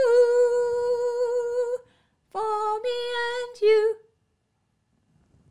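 A woman singing unaccompanied, demonstrating the soprano harmony line of a gospel chorus. She holds a long 'ooh' that steps down once in pitch, breaks off briefly, then sings a short phrase of a few notes that ends about four seconds in.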